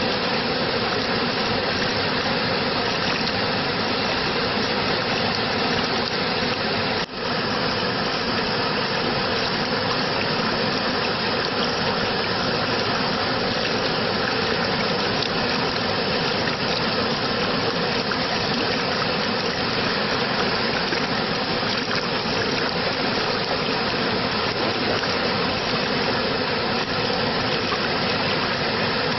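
Steady rushing water, an even continuous roar like a waterfall or fast stream, with a brief dropout about seven seconds in.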